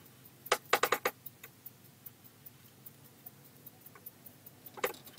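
Faint ticking a few times a second, with a quick cluster of louder sharp clicks about a second in and another near the end.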